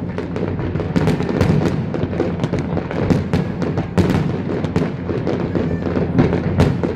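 Large fireworks display: a continuous barrage of shell bursts, several sharp bangs a second over a steady rumble.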